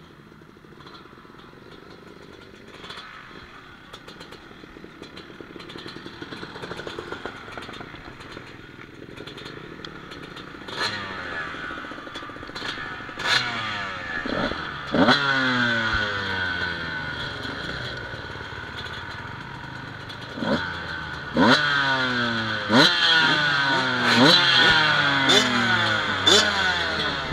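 Motocross dirt bike engines idling and being revved in sharp blips. Each rev shoots up and falls away again, and the blips come louder and more often from about ten seconds in.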